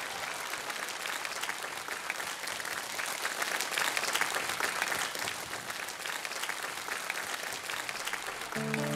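Studio audience applauding, a dense steady patter of many hands clapping. Near the end, held chords of the song's backing music come in.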